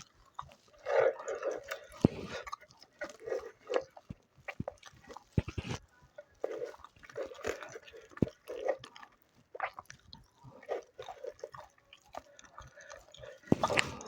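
Close-up eating sounds: irregular wet chewing and smacking of rice and chicken curry, with short clicks of biting and crunching.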